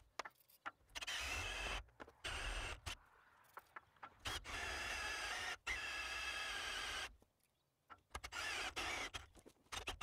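Milwaukee M18 cordless drill boring through the steel channel of a sawmill track, its motor whining in short runs that start and stop about five times as the bit cuts into the metal.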